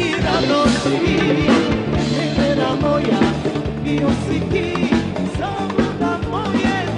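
Band music with a steady drum beat and a lead instrument playing an ornamented melody with bending notes, without singing.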